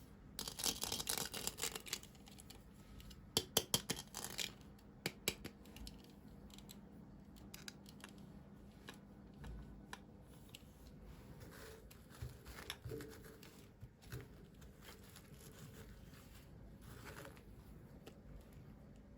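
Small packaging being handled and opened by hand: a short stretch of rustling and tearing in the first couple of seconds, then a run of sharp clicks and a few scattered light taps and rustles.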